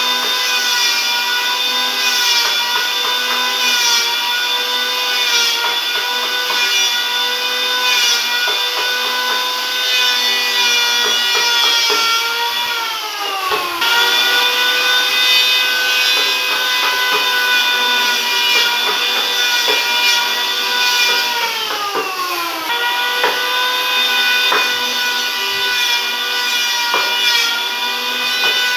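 Electric woodworking power tool running and cutting wood, its motor whine steady with two slow dips in pitch as it bogs under load, each snapping back up.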